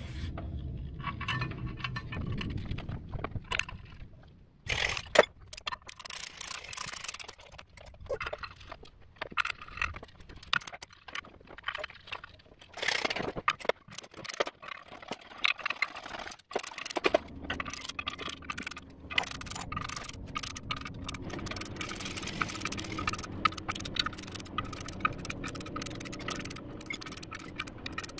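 Quick runs of small metal clicks and rattles from a hand wrench running in the clutch pressure plate bolts on a 2006 Subaru Impreza, snugging each one down in turn before torquing. The clicks are scattered at first and come thick and fast from just past halfway.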